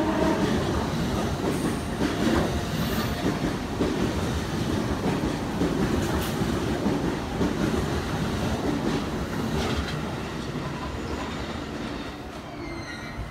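JR East E233 series electric commuter train running along the platform and away: a loud, steady rumble of wheels on rail, with a few sharp rail-joint clacks. It fades over the last few seconds as the train draws off.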